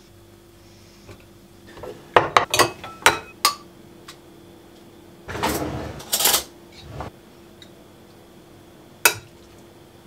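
Kitchen dishes and utensils clinking and clattering: a quick run of sharp clinks about two seconds in, a longer rustling scrape around five to six seconds, and a single clink near the end, over a faint steady hum.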